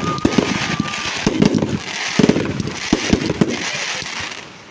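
Fireworks display going off: a dense run of sharp bangs and crackling, loud throughout, that dies down near the end.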